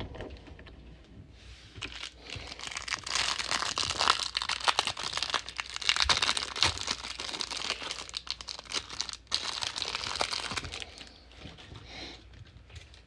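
Plastic wrapper of a trading card pack being torn open and crinkled by hand, a dense crackling that starts about two seconds in and dies down near the end.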